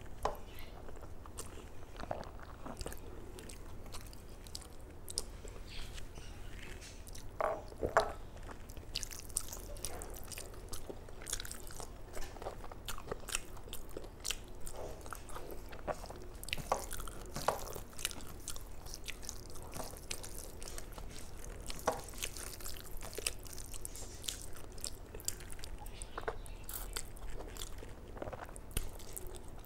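A person eating rice and curry close to the microphone: irregular wet chewing, smacking and small crunches, with a louder pair of sounds about eight seconds in.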